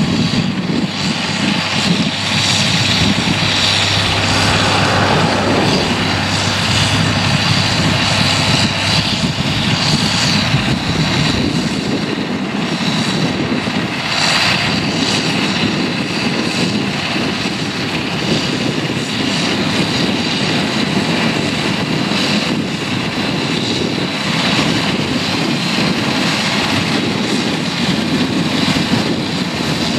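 Claas Challenger 75E crawler tractor's diesel engine running steadily under load while pulling a wide cultivator through stubble, with only small swells and dips in level.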